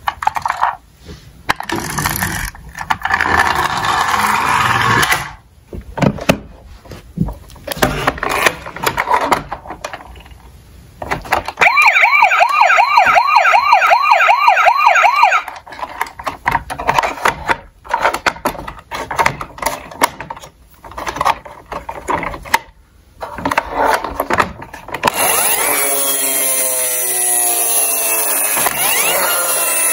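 Small toy cars clattering and rattling down a toy slope, with a battery toy's electronic siren wailing loudly in quick repeating cycles for about three and a half seconds near the middle. A steady, loud electronic sound sets in about five seconds before the end.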